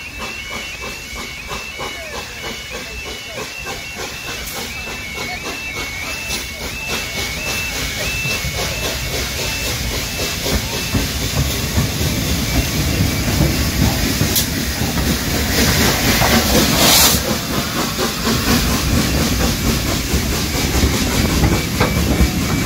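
Peppercorn A1 Pacific steam locomotive 60163 Tornado approaching and passing close by, its regular exhaust beats and steam hiss growing louder, with a loud burst of steam hiss about three quarters of the way through and then the rumble of the tender and carriage wheels. A level-crossing warning alarm sounds its two alternating tones throughout.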